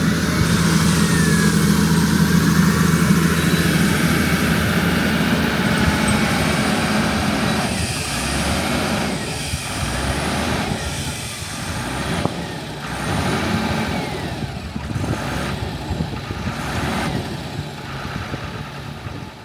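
Heavy diesel engine running. It holds a steady drone for about the first eight seconds, then turns uneven, with repeated surges and dips.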